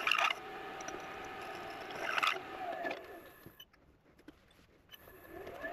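Wood lathe running while a drill bit bores into a bolly gum pen blank held in the chuck. About two and a half seconds in the lathe winds down, falling in pitch, and goes nearly quiet. Near the end it spins back up with a rising whine.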